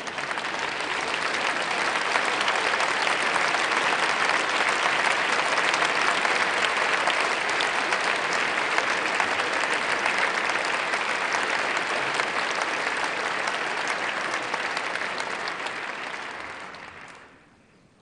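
Theatre audience applauding at the end of a ballet solo, swelling over the first couple of seconds, holding steady, then dying away near the end.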